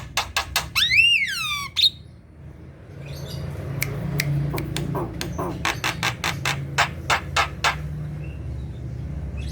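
Javan myna song: a fast run of sharp clicking notes, then a loud whistle that rises and falls about a second in. After a short pause, more sharp clicking notes follow at about four a second over a low steady hum.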